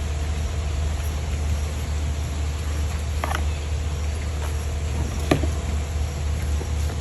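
A steady low hum throughout, with two brief clicks of the watch box and packaging being handled about three and five seconds in.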